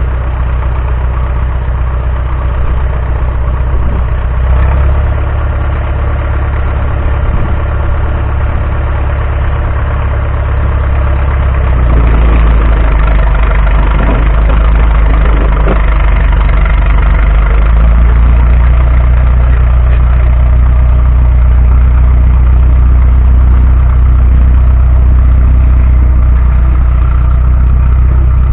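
Heavy engine of a tracked machine idling steadily. About twelve seconds in, its low rumble grows louder and stays up.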